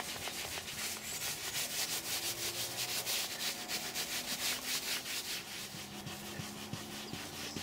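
Dry cloth rubbing conditioner into a leather car seat in quick circular strokes: a fast, rhythmic swishing scrub.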